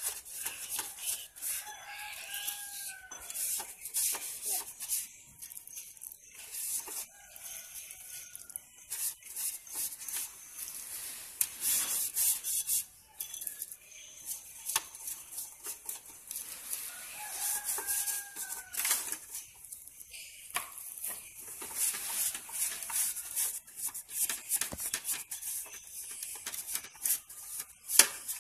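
Hands and a plastic bag of margarine rubbing and scraping over the inside of an aluminium baking tin, with crinkling plastic and light knocks on the metal. A chicken calls in the background three times, about two, eight and eighteen seconds in.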